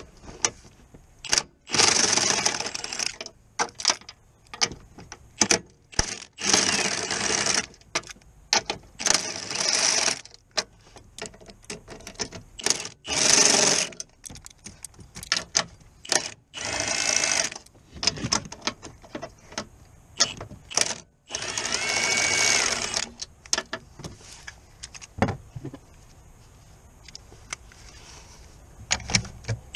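Powered ratchet spinning a socket on a long extension to run nuts and bolts in or out, in about six bursts of roughly a second each, with a whine that rises and falls. Sharp metal clicks and knocks of the socket and tools between the bursts.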